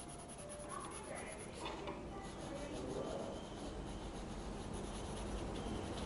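Red colored pencil shading on paper: a faint, steady rubbing.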